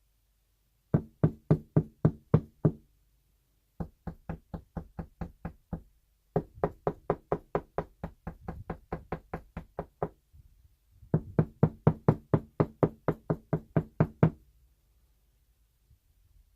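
Knocking on a room wall by hand in four quick runs, about five knocks a second, sounding the wall to find where the wooden studs sit behind it.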